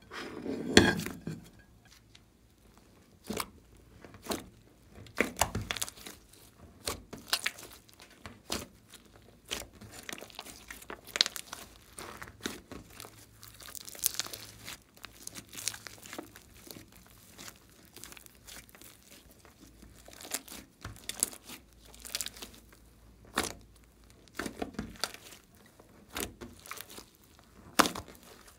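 Hands squeezing and kneading a large mass of store-bought slime mixed with clay and makeup: irregular sticky squishing with crackling pops of trapped air. There is a louder burst about a second in.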